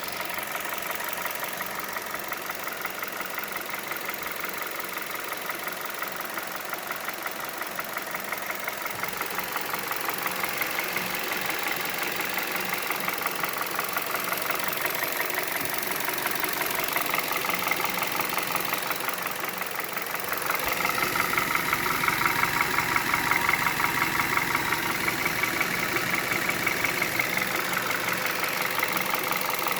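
Hyundai Solaris G4FC 1.6-litre four-cylinder idling warm at about 700 rpm with a steady, rapid knock; the sound gets louder about twenty seconds in. The knock stays despite a new timing chain, tensioner and cam phaser; the owner suspects piston skirt slap or valves tightening up as the engine warms.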